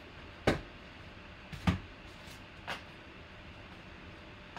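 A few short, sharp knocks and bumps as the sealed card pack in its paper envelope is handled against the tabletop. The two loudest come about half a second and about a second and a half in, with fainter ones near the end.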